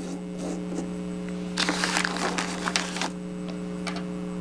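Small miniature craft bricks being handled and set in place, a short run of light clicks and scrapes lasting about a second and a half from near the middle, over a steady electrical hum.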